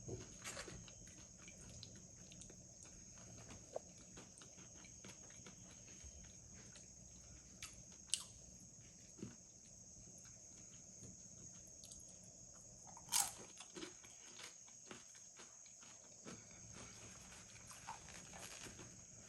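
Close-up eating sounds of beef nachos being chewed: quiet, wet mouth noises with many small clicks and crunches. A sharper click comes about eight seconds in and a louder one about thirteen seconds in.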